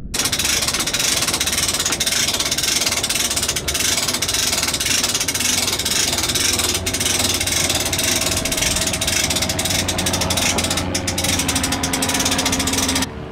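A Kommander stand-up jet ski being winched up a metal loading ramp into a van: a dense, rapid clicking rattle of the winch and ramp with a steady hum in the second half, cutting in and out abruptly.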